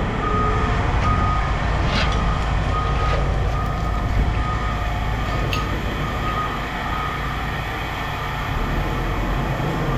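A truck's reversing alarm beeping at an even pace, a little more than once a second, over the steady low running of the truck's engine. Two sharp clicks can be heard about two seconds in and again about five and a half seconds in.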